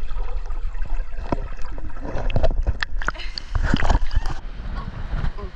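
Water splashing and sloshing in a swimming pool, loudest about two to four seconds in, under strong wind buffeting the microphone with a heavy low rumble.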